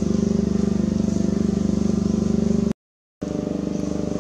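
A small engine running steadily with a low, fast-pulsing hum; it cuts out abruptly for about half a second near the end and then carries on.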